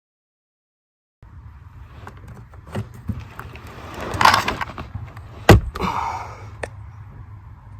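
After about a second of dead silence, handling noises from working fuses in and out of a pickup's under-dash fuse panel: rustling, scraping and several small clicks, the sharpest about five and a half seconds in.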